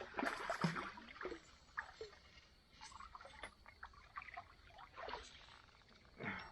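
Faint trickle of creek water with scattered small clicks and knocks, and one louder knock near the end.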